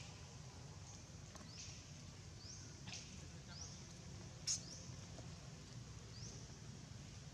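Faint, short, high chirps that rise in pitch, repeating about once a second, over a low steady background, with a few sharp clicks; the loudest click comes just past the middle.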